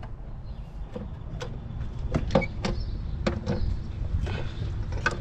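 Irregular plastic clicks and light knocks from hands working wiring-harness connectors and parts on an engine's upper intake manifold, about a dozen sharp ones, coming thicker after the first two seconds, over a steady low rumble.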